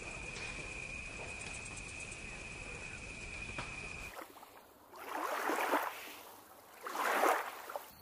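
Water sloshing in two swelling swishes about two seconds apart. Before them, a steady high-pitched tone over a low hiss cuts off abruptly about four seconds in.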